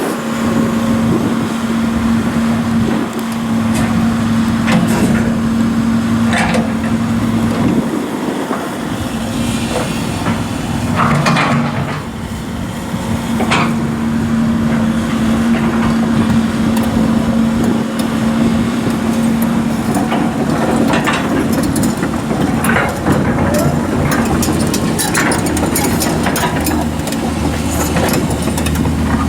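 2011 Sany SY135C excavator's diesel engine running steadily, with scattered knocks and clanks from the machine at intervals.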